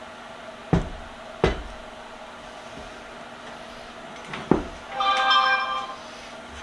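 Three sharp knocks, the first two about a second in and the third near four and a half seconds. They are followed by a brief sound with several steady pitches, lasting about a second.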